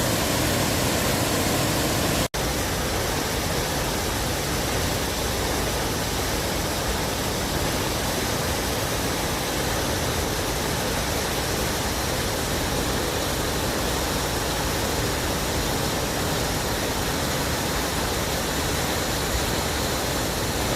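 Steady rush of water falling at the Giessbach Falls, cutting out for an instant about two seconds in.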